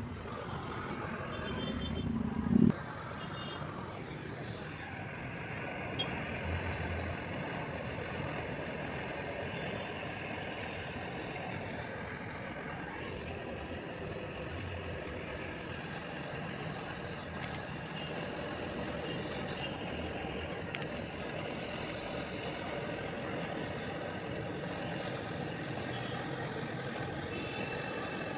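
Handheld butane canister gas torch burning with a steady hiss while heating the copper pipe joints of an air-conditioner outdoor unit. There is a brief loud bump about two and a half seconds in.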